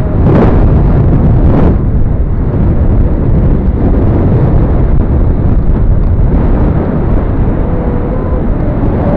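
Heavy, steady rumble of wind buffeting the microphone as the rider moves along. There are two brief louder gusts about half a second and a second and a half in, and a faint thin tone near the end.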